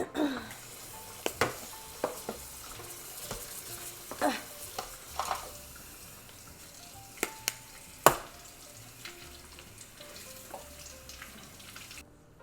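Kitchen handling sounds: scattered sharp knocks and clinks of utensils and dishes, the loudest about eight seconds in, over a steady hiss that cuts off suddenly near the end.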